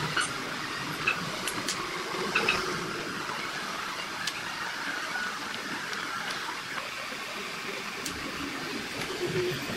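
Small wooden tiles clicking and clattering as they are handled, picked from a loose pile and set down on a wooden board: a handful of sharp, irregular clicks over a steady hiss.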